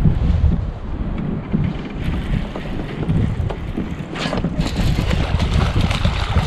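Wind buffeting the camera microphone in gusts, a low rumble, with a short rustle about four seconds in.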